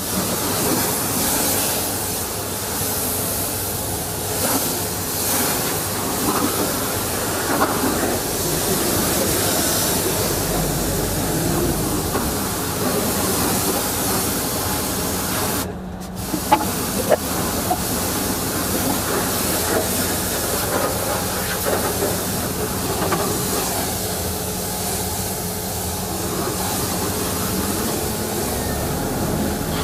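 Hot-water pressure washer spraying a truck's chassis and wheels: a steady, loud hiss of the jet over a steady low hum. The spray breaks off briefly about halfway through, then resumes.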